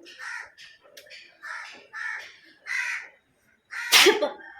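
Crows cawing repeatedly in short, separate calls, with one much louder sudden burst about four seconds in.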